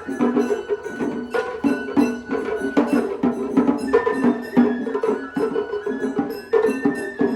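Japanese festival float hayashi music played live: drums struck in a quick, uneven rhythm under a high melody of held notes that steps from pitch to pitch.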